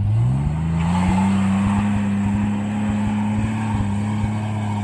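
Toyota Land Cruiser 80-series engine revving up through the first second, then held at high revs as the 4x4 climbs a steep dirt slope. Scattered short sharp knocks run through it.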